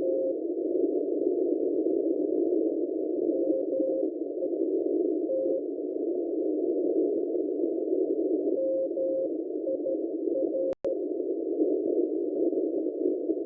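Morse code signal on 7999 kHz received on a shortwave radio: a single tone keyed on and off in short and long marks, with pauses of a second or more between groups, over the receiver's narrow band of hiss. The audio drops out for an instant about eleven seconds in.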